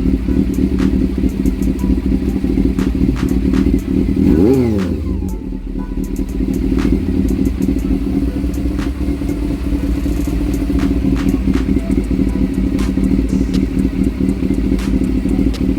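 Honda CB400 motorcycle engine idling steadily, with one quick blip of the throttle about four seconds in that sends its pitch up and straight back down.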